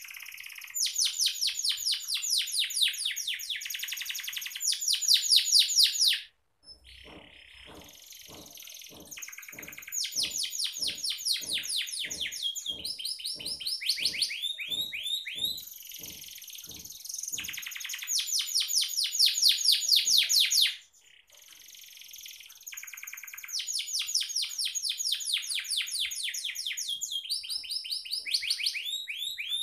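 Domestic canary singing a long, fast song of rolling trills and chattering phrases, breaking off briefly about six and about twenty-one seconds in.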